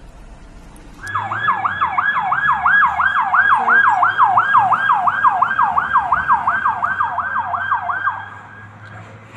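Emergency vehicle siren in a fast yelp, rising and falling about three times a second over a low steady hum. It starts suddenly about a second in and stops near the end.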